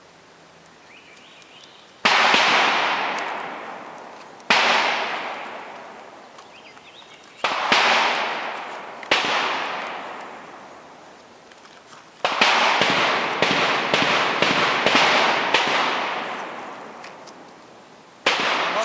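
Gunshots at an outdoor shooting range. First come four single shots a few seconds apart, then a quick string of about eight shots over three seconds, and one more shot near the end. Each shot trails off in a long echo.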